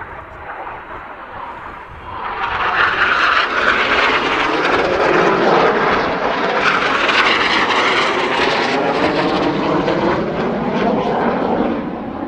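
Jet noise from a Red Arrows BAE Hawk T1's Adour turbofan as the aircraft flies past: it swells about two seconds in, stays loud, then begins to fade near the end.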